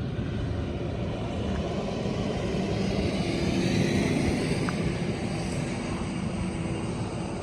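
A motor vehicle's engine running, growing louder to a peak about four seconds in and then easing off, as a car drives up.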